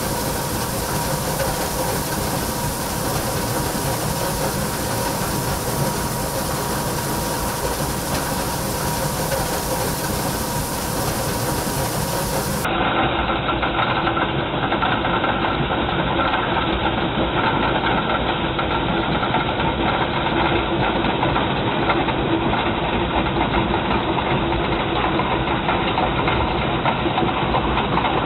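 Stone crushing and screening plant running: the steady mechanical din of crushers, vibrating screens and belt conveyors handling crushed stone. About halfway through it turns duller and a little louder.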